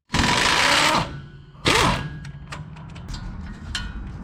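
Power impact wrench running in two bursts, about a second long and then a shorter one, zipping the caliper mount bolts out of the steering knuckle. Light metal clinks and taps follow as the bolts and bracket are handled.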